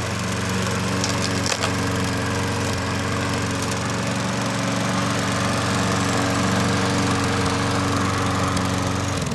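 Troy-Bilt push mower's small engine running steadily after its carburetor was cleaned, with a single click about a second and a half in; the engine sound cuts off suddenly near the end.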